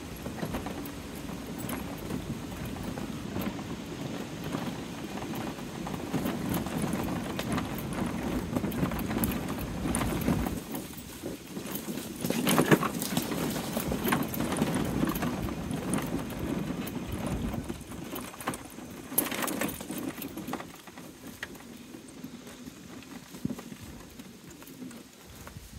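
TGA Breeze S4 GT mobility scooter driving over a rough dirt woodland track: a steady low rolling noise from its tyres and drive, broken by many small knocks and rattles as it jolts over ruts and roots. It is loudest through the middle, with a couple of harder jolts, and quieter over the last few seconds.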